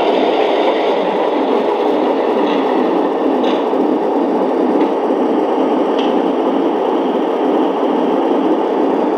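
Onboard sound system of a Lionel FA-2 Halloween model diesel locomotive playing a loud, steady, rushing sound effect through its small speaker.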